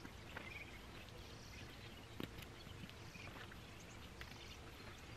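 Quiet outdoor ambience with soft ticks and scrapes of a small knife slicing back strap meat along a beaver's spine, the clearest a close pair of ticks about two seconds in. Faint bird chirps now and then.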